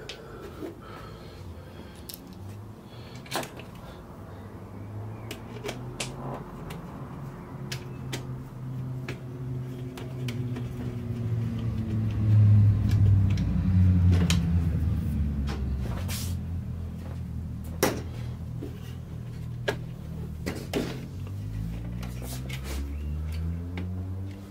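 A long metal rod is slid through the steel frame of a photocopier fuser unit, making a low rubbing scrape that grows loudest about halfway through, with scattered sharp clicks of metal and plastic parts being handled.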